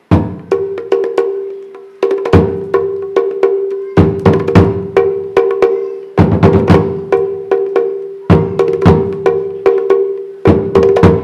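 Live stage drumming: clusters of sharp, hard strokes that repeat about every two seconds, over a steady ringing tone.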